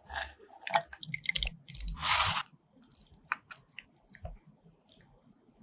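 Ladle scooping thick, oily mutton curry out of a clay handi pot and serving it into a skillet: a run of wet squelches and soft knocks, the loudest about two seconds in, thinning to a few light ticks by about four seconds in.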